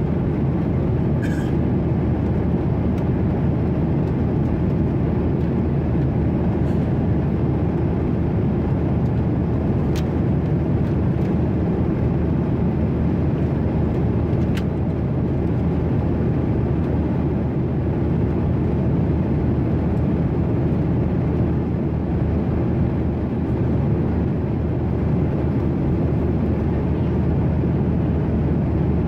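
Steady cabin noise inside a Boeing 737-800 airliner: its CFM56-7B turbofan engines and the airflow make a loud, even, low hum that does not rise or fall. A couple of faint ticks come through about ten and fifteen seconds in.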